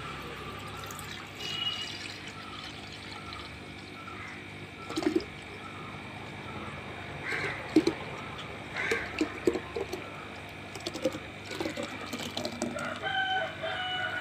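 Buttermilk pouring into a clay pot, a steady running pour, while chickens cluck. A crow-like call with a falling pitch comes near the end.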